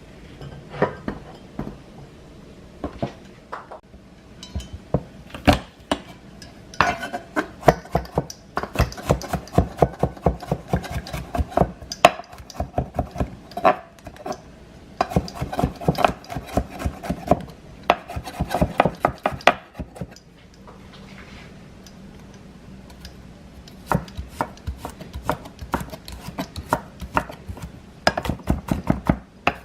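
Knife chopping onion on a cutting board, in quick runs of strokes with a pause of a few seconds past the middle.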